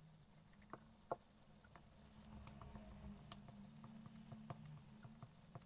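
Near silence with faint, scattered soft pats and clicks: a sponge dabbing nail-polish-remover-soaked magazine paper onto a copper-clad board, pressing the printed toner onto the copper for transfer. A faint low hum runs underneath.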